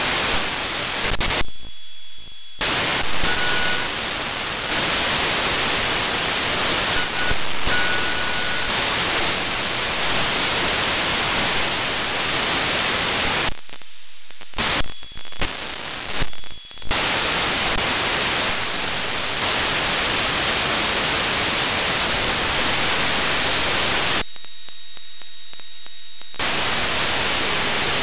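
Loud steady static hiss from a software-defined radio demodulating wideband FM, with no broadcast audio coming through. Three times the hiss drops out for a second or two and leaves only a faint steady high tone: near 2 seconds in, around 14 to 17 seconds (broken up), and around 25 seconds.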